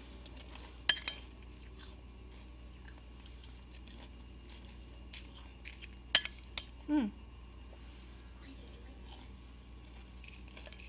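Crunchy chewing of popcorn cereal in milk, with a few sharp clicks of a spoon against the bowl: one about a second in and a quick cluster around six seconds in.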